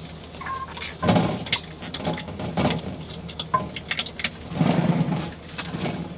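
Clothes hangers clicking and clinking on a wardrobe rail as garments are hung up, with rustling fabric in between.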